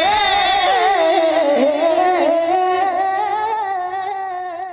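Closing of a Punjabi devotional song: one long, wavering melodic line that bends up and down and begins to fade near the end.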